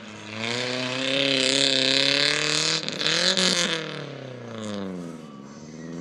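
Tough-truck race truck's engine revving hard over a rough dirt course, loudest for the first few seconds, its pitch rising and falling with the throttle, then dropping away lower and quieter after about three and a half seconds.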